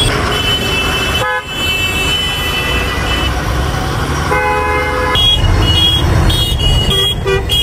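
Vehicle horns honking in town traffic over the steady low rumble of a truck engine, heard from inside the truck's cab. There is one long horn note at the start, another horn a little after four seconds in, then a string of short toots near the end.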